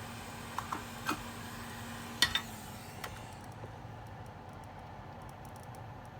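A few light clicks and taps of small hand tools during an electronics repair, the loudest about two seconds in, over a steady background hiss. A faint hum stops right after the loudest tap.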